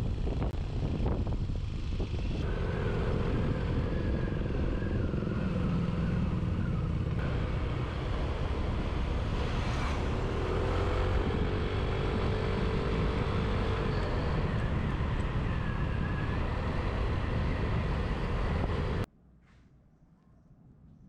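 A road vehicle on the move, its engine rumble mixed with wind on the microphone. The noise cuts off suddenly near the end and much quieter sound follows.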